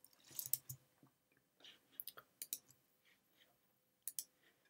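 Faint, sparse clicks of a computer keyboard and mouse: a few keystrokes in the first second, then single clicks scattered through the rest.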